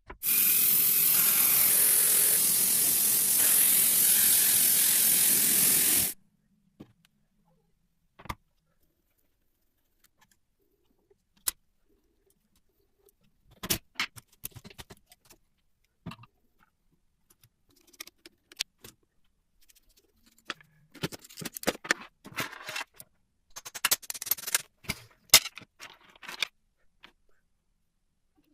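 A loud steady hiss for about six seconds that cuts off suddenly, then scattered light clicks and bursts of small metallic rattling from typewriter parts being handled.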